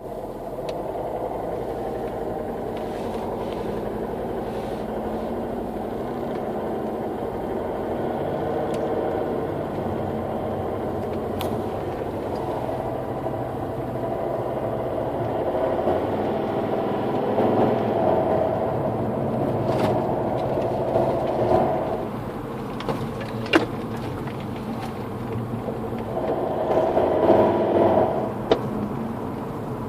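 Volvo V50 D5's five-cylinder turbodiesel running, heard in the engine bay, carrying a strange noise whose cause is not known. It grows louder for a few seconds about two-thirds of the way through and again near the end, with a few sharp clicks.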